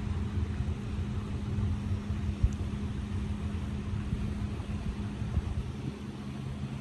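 An engine running steadily, a low rumble with a constant low hum.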